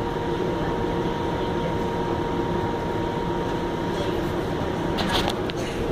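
Steady cabin noise inside a Flexity Outlook low-floor streetcar: the hum of its onboard equipment, with a thin high tone that stops about five seconds in, followed by a few sharp clicks.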